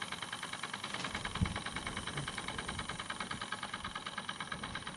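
RETROL SE-02 model horizontal steam engine running slowly with an even, rapid beat of exhaust puffs and moving parts. A single short knock about a second and a half in.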